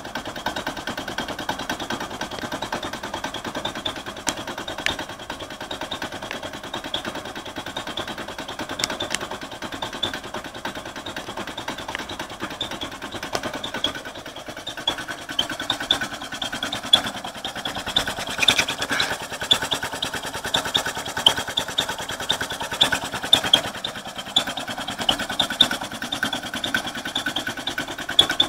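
Vintage air compressor running steadily, a Crompton Parkinson electric motor driving an old piston pump that fills a 1971 DeVilbiss tank, with a fast, even pumping beat. It has no pressure cut-off fitted, so it runs on continuously as the tank pressure rises.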